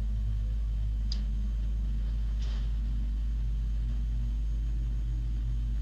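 Car engine idling with a steady low rumble, heard through a doorbell camera's microphone, with two faint brief clatters about a second and two and a half seconds in.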